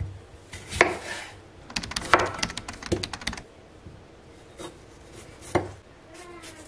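Chef's knife cutting through a firm green tomato and knocking on a bamboo cutting board: a sharp knock about a second in, a quick run of small taps and knocks around two to three seconds in, then single knocks near four and a half and five and a half seconds.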